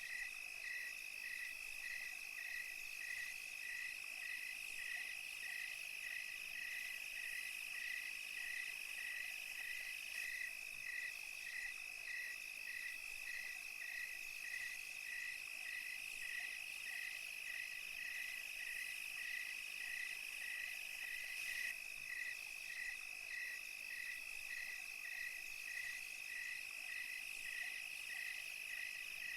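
Night chorus of crickets and other insects: a steady high trill with a regular chirp repeating about twice a second, over a fainter high hiss of more insects.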